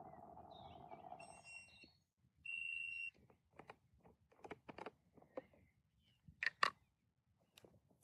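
Battery-powered portable espresso maker: a steady hum stops about two seconds in, then the unit gives one short high beep, followed by a run of plastic clicks and knocks as its top cap is twisted open.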